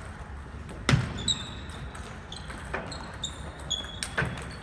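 Table tennis rally: a celluloid-type ball clicking sharply off paddle and table three times, the first click loudest, with short high squeaks of sneakers on the wooden gym floor between the hits.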